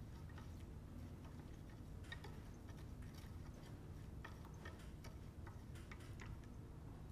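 Wooden stirring stick clicking and tapping irregularly against the sides of a plastic container while stirring crystal powder into hot water to dissolve it, over a low steady hum.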